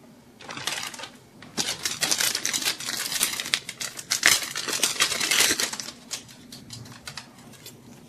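Clear plastic wrapping crinkling and rustling in the hands as it is pulled off the metal I/O shield, with many small crackles. It starts about half a second in, is loudest in the middle and thins out to a few light crackles near the end.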